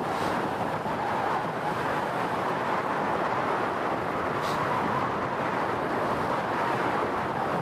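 Steady rush of wind buffeting the microphone, mixed with the wash of waves and water.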